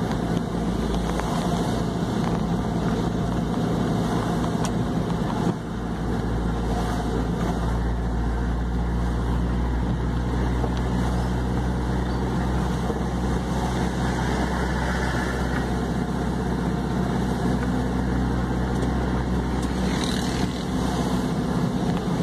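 Steady engine hum and road noise inside a moving vehicle's cabin, with two brief small dips in level.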